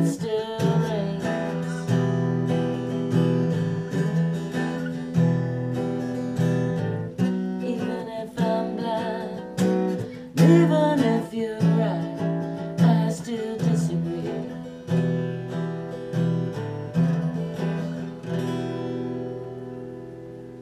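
Steel-string acoustic guitar strummed, a chord about once a second, closing the song. The last chord rings out and fades away near the end.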